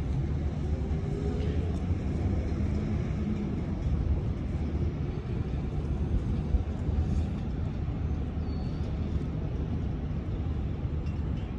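Steady low rumble of open-air background noise, even throughout with no distinct events.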